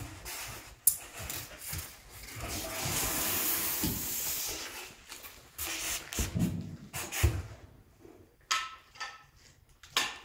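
A thick expanded-polystyrene foam slab being slid and pushed across the plywood table of a hot-wire foam cutter: a long rubbing hiss in the middle, several knocks as it is shoved into place against the stop, and a short foam squeak near the end.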